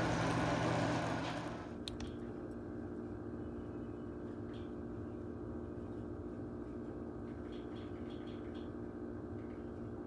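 A loud rushing noise with a low hum fades out over the first two seconds, followed by a couple of sharp clicks, then a steady hum with a few faint ticks.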